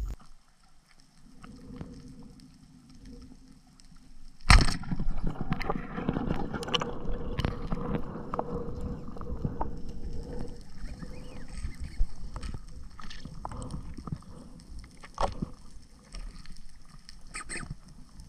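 Muffled underwater noise heard through a camera housing as a spearfisher swims with fins: a sharp knock about four seconds in, then a steady water rush with scattered clicks and ticks.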